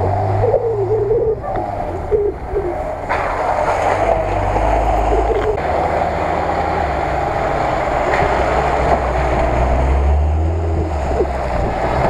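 Off-road vehicle's engine running at low speed as it drives along a muddy track, with its tyres splashing and sloshing through mud and puddles.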